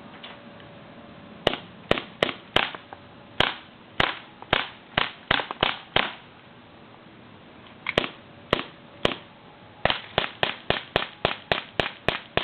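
CO2 BB gun firing shot after shot, each a sharp pop. About a dozen shots come roughly two a second, then there is a short pause, and a faster string of about three shots a second runs near the end.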